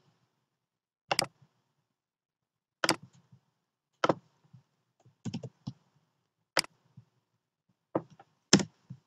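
Scattered clicks of a computer mouse and keyboard, one or a few at a time, every second or two, as text is selected, copied and pasted.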